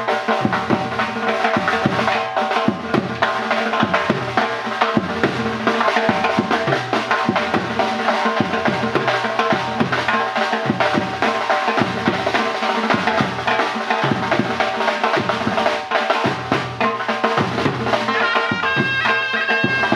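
Live Uzbek folk music: drums keep a steady, driving beat under long held notes from a surnay, a double-reed shawm. About eighteen seconds in, a higher melodic line comes in over them.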